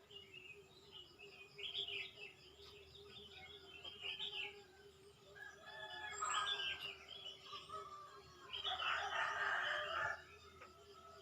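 Morning birdsong: small birds chirping on and off, with a rooster crowing. The crow comes loudest near the end and lasts about a second and a half. A steady low hum runs underneath.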